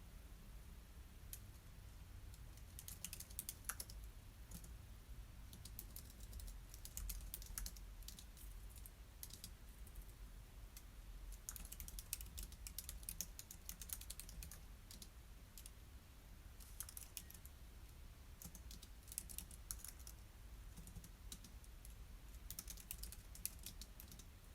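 Faint typing on a computer keyboard: bursts of quick keystrokes a second or two long, with short pauses between them, over a low steady hum.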